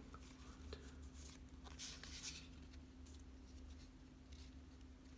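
Faint, soft rustling of a Pokémon card booster pack and its cards being handled, in a few short spells over a steady low hum.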